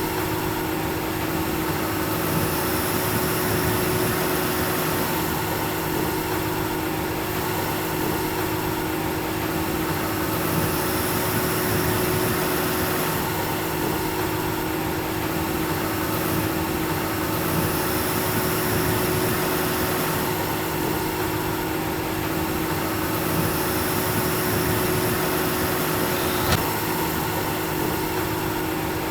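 Tractor engine and PTO-driven Vermeer 604S Premium round baler running steadily while baling alfalfa, a continuous mechanical hum and whirr with one sharp click near the end.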